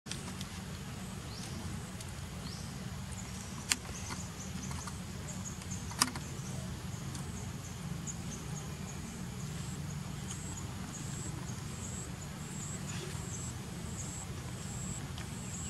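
Outdoor ambience: a steady low rumble with a faint, high-pitched repeating chirp running through it, and two sharp clicks about four and six seconds in.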